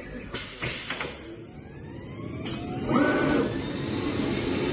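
Automatic fabric cutting machine starting up: a couple of clicks, then a motor whine rising in pitch, and from about three seconds in a loud, steady rushing noise as the machine runs.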